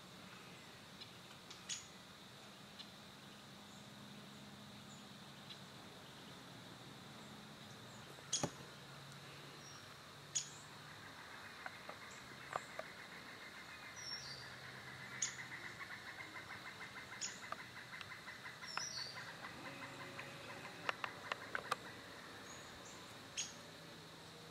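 Faint woodland ambience with scattered bird chirps and a few sharp clicks, and a rapid pulsing trill that runs for several seconds in the middle.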